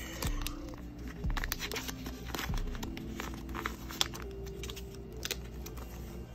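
Clear plastic binder sleeves and nail sticker sheets rustling and crinkling as they are handled and slid into the pockets, with scattered small ticks and a sharper tick about four seconds in. Soft background music underneath.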